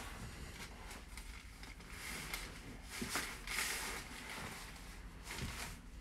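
Soft rustling of clothing and hands shifting on a padded treatment table, with a louder brief rustle about three seconds in.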